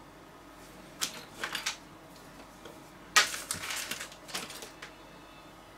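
Two bursts of rapid clicking and clattering: a short one about a second in and a longer, louder one from about three seconds in.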